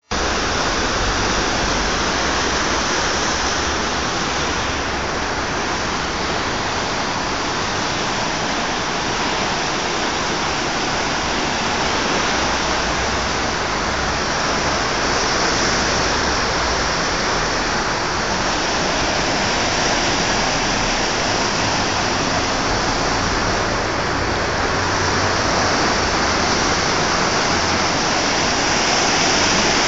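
A river in flood: fast, swollen water rushing and churning through its channel, a steady, loud rush of water.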